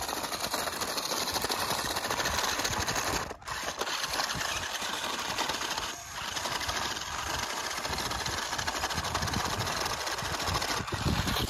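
Toy 4WD RC rock crawler's small electric motors and gearboxes whirring steadily as it climbs a rocky slope, cutting out briefly twice: a little past three seconds in and at about six seconds.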